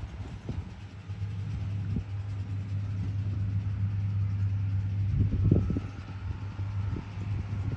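A large farm tractor's engine running steadily as it pulls a big square baler through hay, a low, constant hum. A short cluster of low thumps comes about five and a half seconds in.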